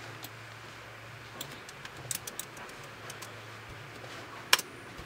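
Faint scattered clicks on a laptop as someone navigates the web page, with one sharper click about four and a half seconds in, over a low steady hum.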